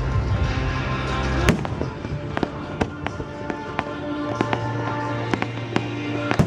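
Fireworks bursting and crackling in quick succession over sustained music playing with them. Sharp bangs come about a second and a half in and again near the end, with many smaller crackles between.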